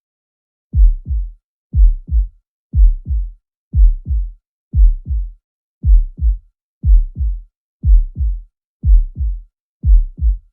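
Heart sounds as heard in cardiac auscultation: a steady lub-dub, the first sound of each pair louder than the second, about one beat per second with silence between the beats.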